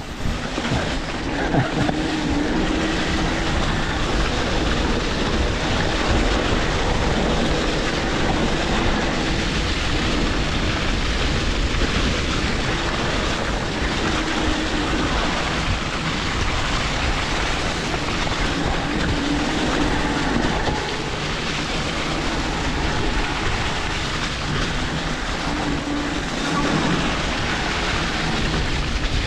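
Riding noise from an electric mountain bike on a rough, wet trail: a steady rumble and rattle of tyres and frame over the ground with wind on the microphone, and a faint whine that rises and falls now and then.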